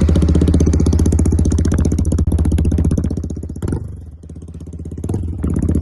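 Motorcycle with a newly fitted exhaust, started up and running loud with a strong pulsing exhaust note. The throttle eases off about four seconds in, then the engine builds up again near the end.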